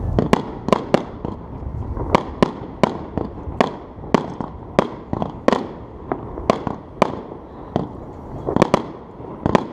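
Aerial fireworks bursting in the sky: a rapid, uneven series of sharp bangs, about two a second, over a low rumble.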